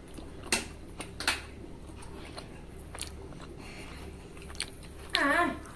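A child eating with his fingers from a steel bowl: biting and chewing, with two sharp mouth clicks in the first second and a half and fainter smacks after. A short voiced sound from the boy comes near the end.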